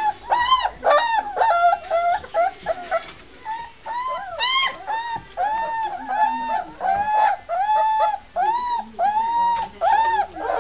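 Three-week-old White Swiss Shepherd puppies whining: a run of short, high cries, about two a second, each rising and falling in pitch.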